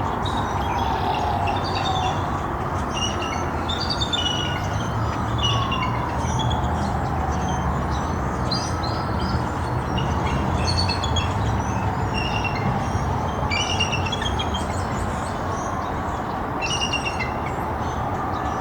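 Bald eagles calling: clusters of high, thin chittering notes repeated throughout, as a mated pair call back and forth. Behind them a siren wails slowly up and down, over a steady low rumble.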